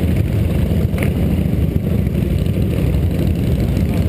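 Several cruiser motorcycles running at once, a steady low engine rumble from bikes idling and riding slowly past.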